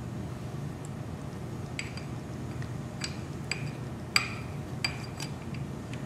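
A spoon clinking against a glass cup while yogurt is scooped out: about six light, ringing taps from about two seconds in, over a low steady background hum.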